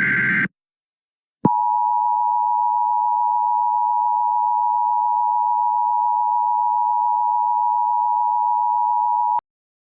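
The end of an Emergency Alert System SAME header data burst, a short digital screech, then about a second of silence and the EAS two-tone attention signal: two steady close pitches sounding together for about eight seconds before cutting off sharply.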